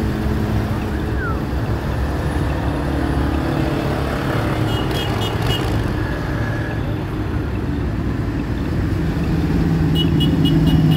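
Motorcycle engines running as motorcycles ride slowly past one after another, over general traffic noise. Near the end a cruiser motorcycle passing close by grows louder, its engine note strongest as it goes past.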